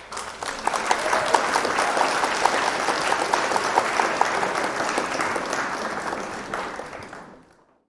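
Sound effect of a large audience clapping strongly. It starts suddenly, holds steady, and fades out shortly before the end.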